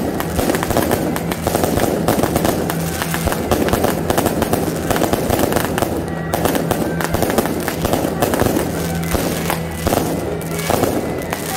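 Aerial fireworks bursting overhead in rapid succession, a dense unbroken crackling and popping with music underneath.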